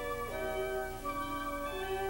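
Background organ music: held chords that change every half second or so.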